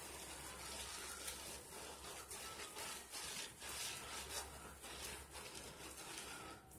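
Soap-laden bath poufs squeezed and rubbed between wet hands: thick lather squishing and crackling faintly with each irregular squeeze.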